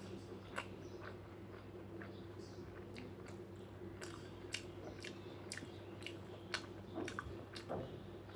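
A person chewing and biting food close to the microphone, with irregular sharp mouth clicks about once or twice a second. A steady low hum runs underneath.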